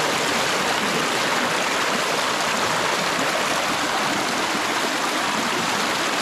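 Mountain stream water rushing steadily, a constant even hiss of flowing water.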